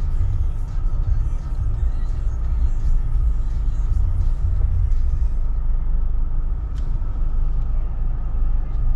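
Steady low rumble of a car's engine and tyres, heard from inside the cabin as the car creeps forward at low speed.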